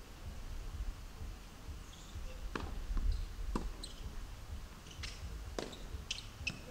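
Tennis ball being struck by rackets and bouncing on the hard court during a rally: sharp pops about a second apart, starting about two and a half seconds in, over a low rumble.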